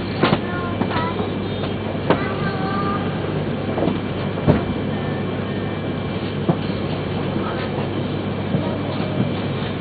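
Steady hum and hiss inside a Yamagata Shinkansen carriage standing at the station platform before departure, with a few sharp clicks and knocks, the loudest about four and a half seconds in, and faint voices early on.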